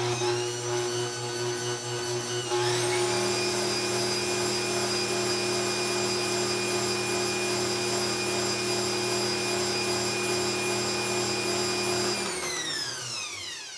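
Bosch Compact Kitchen Machine stand mixer's motor running steadily while its whisk blends milk into cake batter. Its whine steps up in pitch a couple of seconds in, then winds down with falling pitch and stops near the end.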